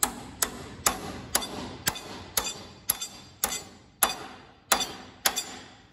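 Hammer tapping a roll pin back into a tractor's three-point lift linkage with even strikes, about two a second, each with a short metallic ring. The taps stop shortly before the end.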